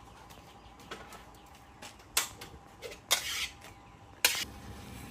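Metal wok and spatula clanking as they are handled and set on the stove: a few sharp knocks, the loudest about two, three and four seconds in.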